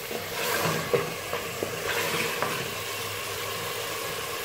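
Beef frying in spiced oil in a pressure cooker pot, sizzling steadily, while a wooden spoon stirs it and knocks against the pot a few times in the first couple of seconds.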